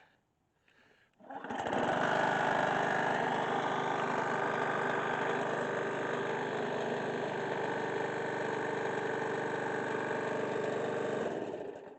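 Lawn mower's small engine catching about a second in after being primed with a couple of squirts, then running steadily until it cuts off near the end.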